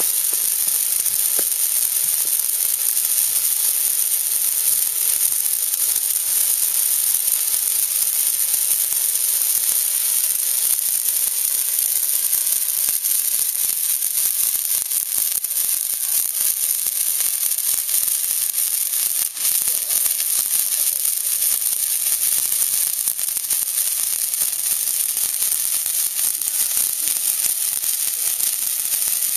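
Hand-held fireworks burning and spraying sparks, making a steady, high, hissing sizzle.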